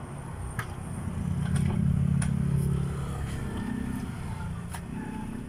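A motor vehicle passing on the road, its engine hum rising to a peak about two seconds in and then fading. A few light knocks from a mop working the van's floor mat.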